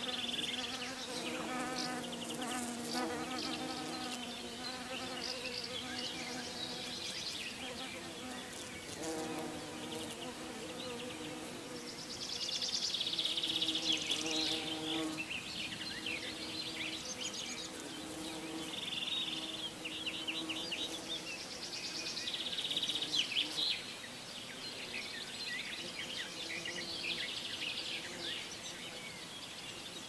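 A bumblebee buzzing as it forages in a peony flower, its hum wavering in pitch as it moves about. Birds chirp and trill over it several times, loudest in the second half.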